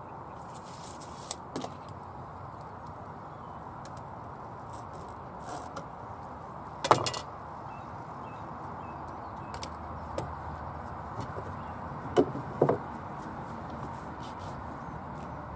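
Scattered clicks and knocks of timber offcuts and hand tools being handled, the loudest a sharp knock about seven seconds in and two more close together near the end, over a steady background hiss.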